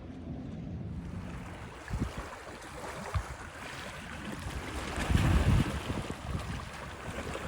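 Wind gusting on the microphone, strongest a little past the middle, over a steady hiss of moving water and small waves.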